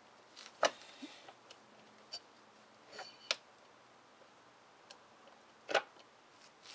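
Sharp metallic clicks and clinks, about ten in all, some briefly ringing, the loudest about half a second in and just before six seconds: the pistons and pump assembly of a Hydro Gear hydrostatic transmission knocking against the housing as the assembly is worked loose and the pistons slip out.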